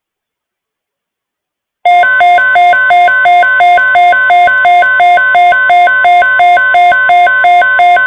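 NOAA Weather Radio alert alarm starting about two seconds in: a loud electronic beeping that alternates between two pitches about three times a second, over the steady 1050 Hz warning alarm tone, signalling an incoming weather alert.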